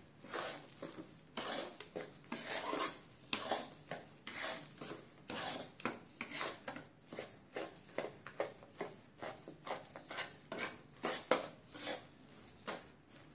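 Spatula scraping and pushing a thick besan and semolina mixture around a metal kadhai as the flour roasts in ghee: repeated rasping scrapes in a steady rhythm.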